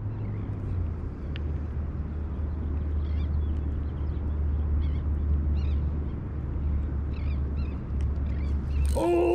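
Steady low rumble outdoors, with a few faint, short, high chirping calls of birds. Right at the end a loud, wavering, high-pitched sound breaks in suddenly as a fish strikes the lure.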